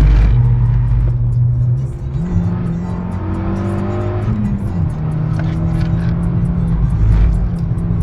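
Renault Mégane R26's turbocharged four-cylinder engine running at speed, its revs climbing about two seconds in and dropping back near the five-second mark.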